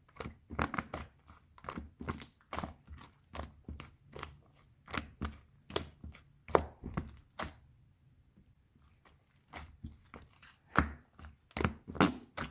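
Irregular crisp crackling and crunching, two or three sharp crackles a second, with a short lull about eight seconds in.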